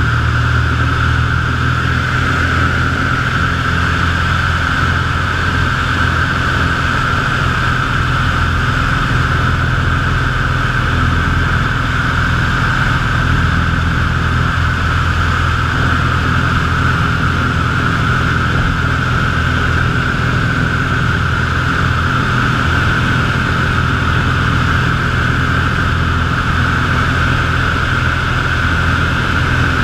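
Piper PA-25 Pawnee's piston engine and propeller running steadily in the climb-out after takeoff, heard from inside the cockpit: a loud, even low drone under a steady hiss.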